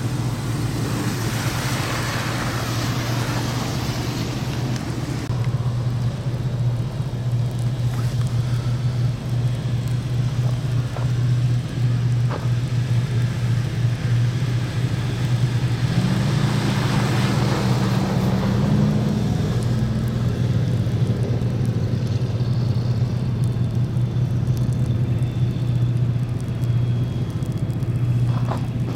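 Steady low motor-vehicle engine hum, with two vehicles passing on the road, one about two seconds in and another about sixteen seconds in; during the second pass an engine note rises briefly.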